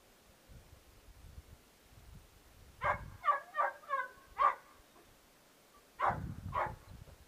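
Hunting dog barking at a fox: a quick run of five or six barks about three seconds in, then two more near the end.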